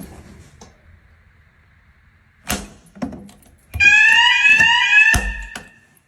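A fire alarm sounder going off briefly in a fire alarm test, sounding a repeating rising sweep tone of about two sweeps a second for about two seconds before cutting off. A sharp click and a few knocks come shortly before it, and a low thump falls during it.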